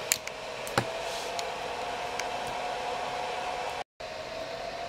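JGAurora A-3 Prusa i3 3D printer's cooling fans running with a steady whir and a faint steady tone, with a few light clicks. The sound drops out for an instant near the end.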